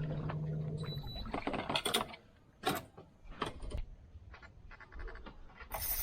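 Scattered knocks and clicks of fishing gear handled in a small aluminium boat, after a steady low hum that stops about a second in.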